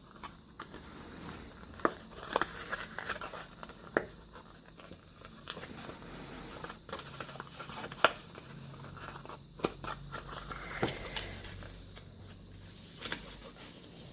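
Card stock being handled and folded along its score lines: scattered light taps and clicks over faint paper rustling, the sharpest click about 8 seconds in.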